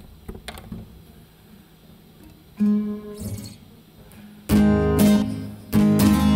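Steel-string acoustic guitar between songs. A few faint clicks come first, then two light strums ring and fade about two and a half seconds in. About four and a half seconds in, steady loud strumming starts.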